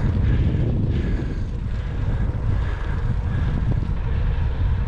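Wind buffeting the microphone of a camera carried on a moving bicycle: a steady low rumble.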